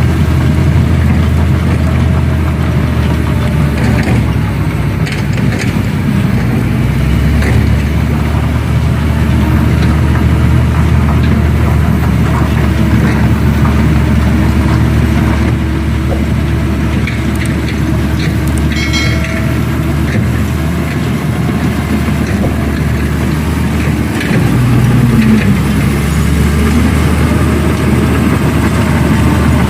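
Heavy diesel earthmoving machinery running steadily with a deep engine hum, which grows stronger about 7 seconds in and louder again about 24 seconds in. A brief high-pitched squeal comes about 19 seconds in.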